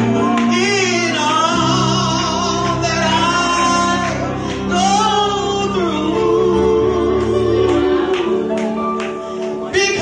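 A woman singing a gospel song into a microphone over instrumental accompaniment, with melodic runs and a held note sung with vibrato partway through.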